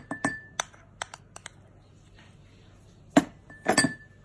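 Metal teaspoon clinking and tapping against a ceramic dish and cup while spooning honey. A quick run of light clicks comes in the first second and a half, then louder knocks a little after three seconds, one of them leaving a brief ringing tone.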